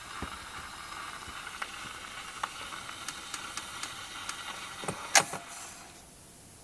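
Steady background hiss with scattered small clicks and one sharper, louder click about five seconds in; the hiss then drops to a quieter floor about a second later.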